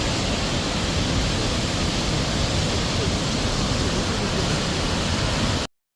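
Steady rushing of wind and water on the deck of a boat moving down a fjord, with gusty low rumbling from wind on the microphone; it cuts off suddenly near the end.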